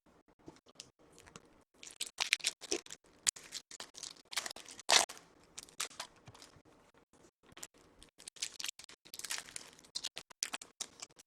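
Foil trading-card pack wrappers crinkling and tearing open, with cards clicking and sliding as they are handled: an irregular run of sharp crackles and clicks.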